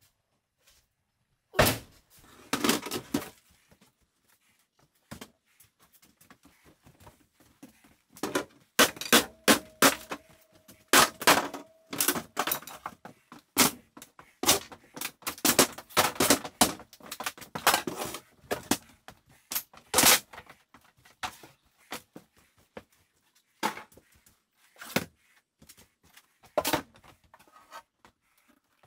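Wooden furniture being knocked apart and handled: an irregular series of heavy wooden thuds and sharp knocks, coming thick and fast through the middle.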